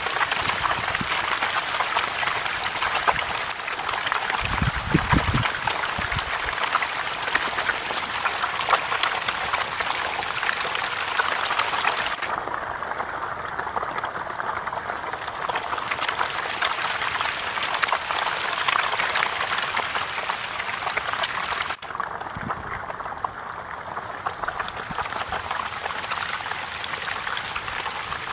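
Dense, continuous splashing and churning of water from a packed crowd of catfish thrashing at the surface in a feeding frenzy, heard as an unbroken hiss of countless small splashes. A brief low thump about five seconds in.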